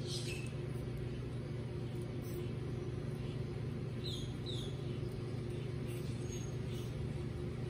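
A steady low hum, with faint scattered crunching as baby Aldabra tortoises bite into lettuce.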